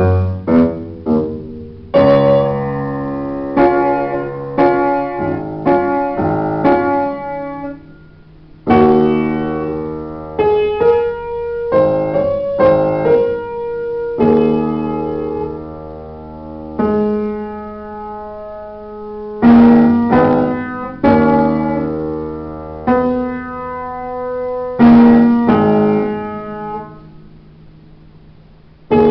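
Upright piano played solo: a melody over sustained chords, the notes struck and left to ring. The sound dies away about eight seconds in and again near the end before each new phrase begins.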